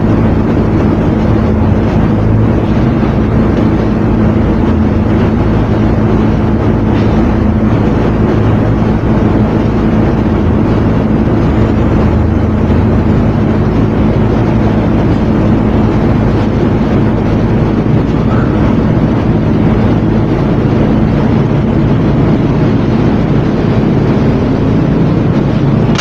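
Gas brazing torch flame running steadily on a copper refrigerant tube, over a constant low hum, with a sharp burst right at the end.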